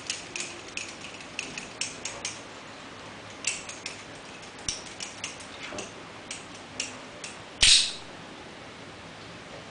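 Balisong trainer being fanned, its handles and blade clicking and clinking irregularly, about two or three light clicks a second as they swing around the pivots, with one louder clack near the end.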